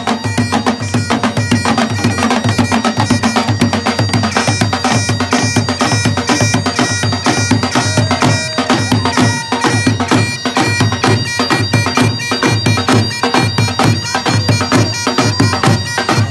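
Scottish bagpipes and pipe-band snare and tenor drums playing a tune together: steady pipe drones under the chanter melody, with rapid, dense drum strokes and rolls.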